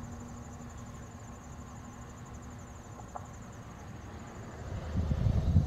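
Crickets chirping in a fast, pulsing high trill that fades after about three and a half seconds. A low rumble swells near the end.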